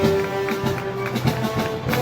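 Festival band music of the Moros y Cristianos kind: long held melody notes, stepping up in pitch about one and a half seconds in, over a steady drum beat.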